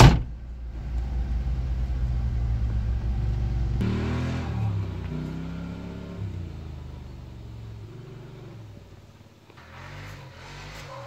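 A vehicle door slams shut, followed by the engine idling, heard from inside the cabin. About four seconds in, the engine revs up as the vehicle moves off, then settles and grows quieter.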